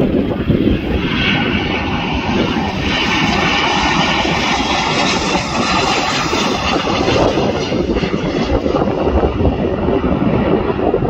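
Jet engines of a Ryanair Boeing 737 on final approach and landing: a steady rushing noise, brightest in the first half as the plane passes the microphone.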